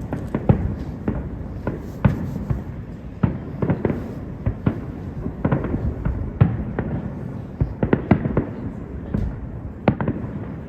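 Aerial fireworks display bursting in rapid, irregular succession: a steady run of sharp bangs, several a second, over a continuous low rumble.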